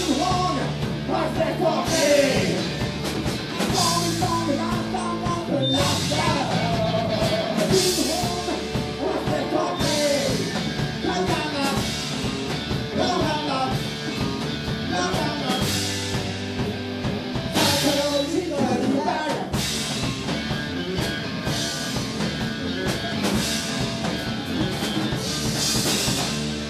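Rock band playing live: two electric guitars and a drum kit, with cymbal crashes throughout.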